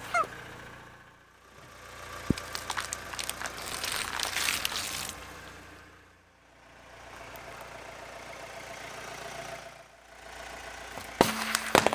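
Car idling low while its tyre crushes small objects: first a dense crackling crunch of foil-wrapped water beads being flattened, then a quieter stretch, then a few sharp cracks near the end as a drink can bursts under the tyre.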